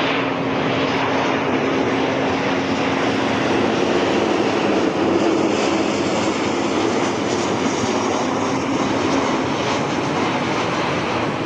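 Steady drone of a propeller aircraft's engine, a constant hum under a wide rushing noise that swells slightly around the middle.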